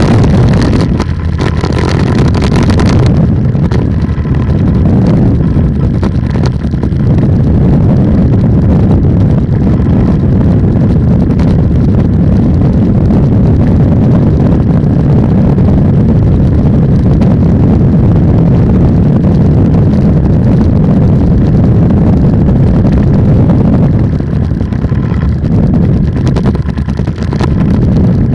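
Polini 190 single-cylinder two-stroke engine of an ultralight trike running steadily under power, with wind rushing over the microphone. The level dips briefly about a second in and wavers near the end.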